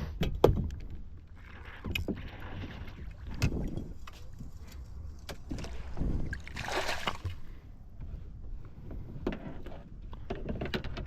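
Water sloshing and splashing around a kayak, with scattered knocks and clicks from the boat and tackle, while a hooked northern pikeminnow is brought in; a louder splash comes about two-thirds of the way through.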